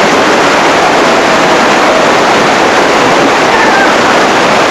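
Loud, steady rush of river water pouring over a low weir into churning white water below, with faint voices now and then.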